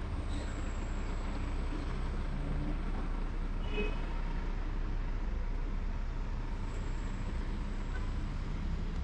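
Steady street traffic noise: vehicle engines running, with a continuous low rumble.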